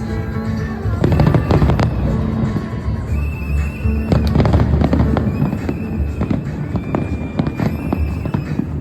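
Fireworks display going off: many bangs and crackles in quick succession, thickening about a second in, with music playing alongside.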